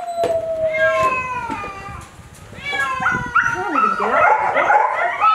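Many Ragdoll cats meowing over one another: a few long calls falling in pitch, a short lull about two seconds in, then a denser chorus of shorter overlapping meows.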